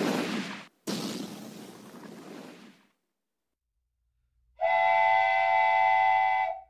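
Intro sound effects: two rushing noise sweeps in the first three seconds, then after a short silence a loud, steady chord of several tones, like a train whistle, held for about two seconds and cut off sharply.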